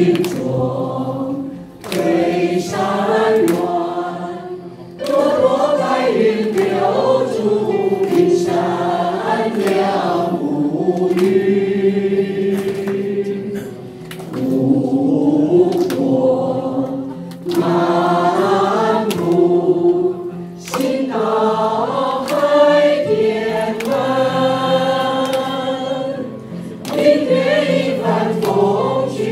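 A group of people singing a Chinese song together, held notes in phrases a few seconds long with brief pauses between lines.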